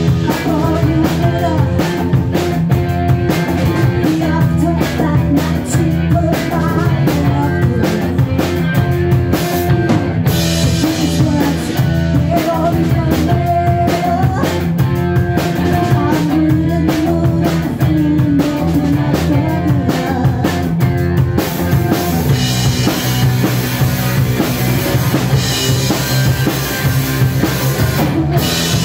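Live rock band playing: drum kit, electric guitar and bass guitar, with a woman singing into a microphone.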